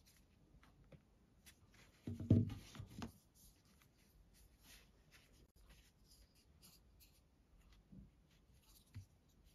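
Hands handling a mobile phone battery and its small cardboard box: light rustling and ticks, with a cluster of dull bumps about two seconds in as the battery is knocked or set against the table, and a couple of smaller knocks near the end.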